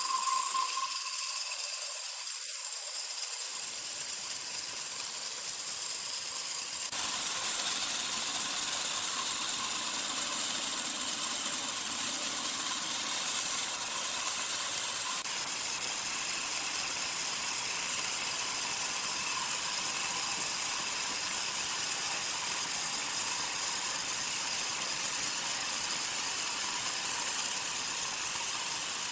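Sawmill machinery running: a steady hissing noise with faint steady tones, changing abruptly about seven seconds in.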